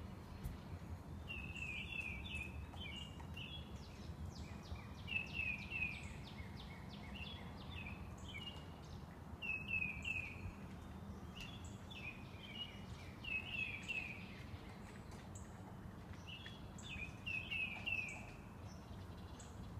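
A songbird singing outdoors: short runs of quick downward-slurred chirps, repeated every few seconds, over a steady low background rumble.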